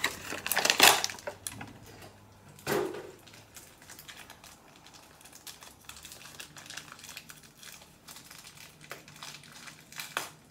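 Plastic toy packaging being handled and crinkled, with loud rustling in the first second or so and another burst near three seconds, then lighter clicks and rustles.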